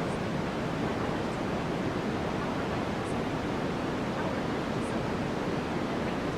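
Steady white noise, an even unbroken hiss, used as the masking track of a subliminal recording.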